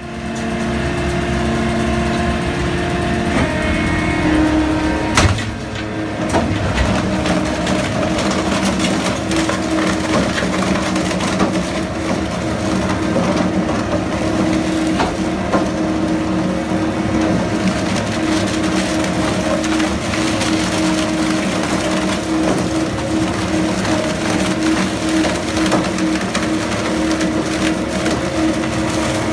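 Industrial rotary paper shredder running under load, grinding a batch of paper documents in its cutters over a steady machine hum. There is one sharp bang about five seconds in.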